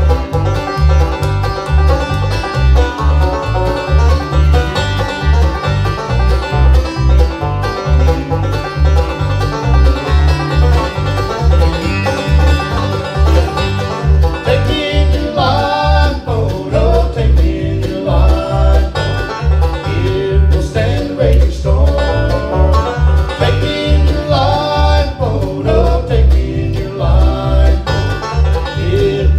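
Live bluegrass band playing a traditional gospel song: banjo, acoustic guitar, mandolin, fiddle and electric bass over a steady bass beat. Singing comes in about halfway through.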